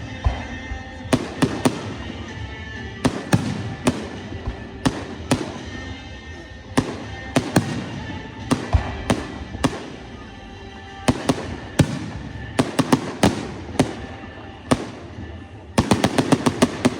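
Fireworks display: aerial shells bursting in irregular sharp bangs, one or a few every second, with a quick volley of about eight bangs near the end. Music plays underneath.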